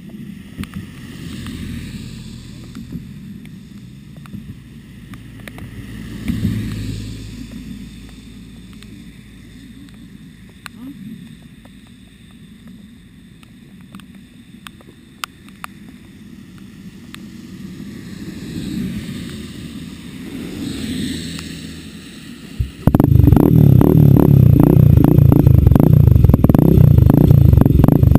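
A low engine idle with swells of hiss from the wet surroundings; about 23 seconds in, an off-road engine very close fires up and runs loud, its firing pulses rapid and heavy.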